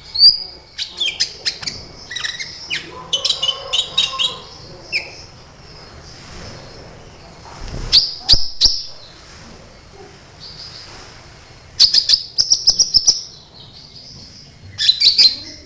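Sunbird song: bursts of rapid, sharp, high chirps and short trills, with quieter pauses of a few seconds between bursts.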